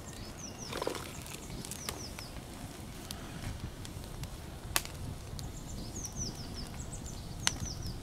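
Wood campfire crackling with scattered sharp pops, two of them loud, about halfway and near the end. A small bird calls in short runs of falling chirps several times over a low wind rumble.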